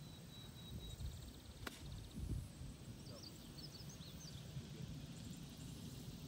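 A golf iron striking the ball on a short approach shot: one sharp click about a second and a half in. A bird chirps a few times shortly after, over a low background rumble.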